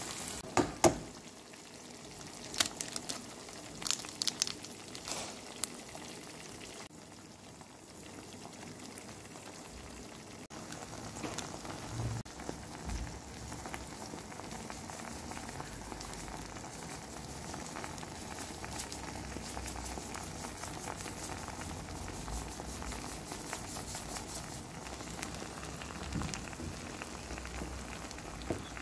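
Eggs cooking in a tomato-paste and olive-oil sauce in a frying pan: a steady bubbling sizzle with crackles throughout. Several sharp clicks stand out in the first six seconds.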